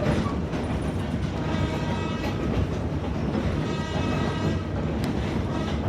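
Narrow-gauge passenger train rolling along the track, heard from on board: a steady rumble and rattle of the car and wheels. A pitched tone sounds over it twice, each time for about a second.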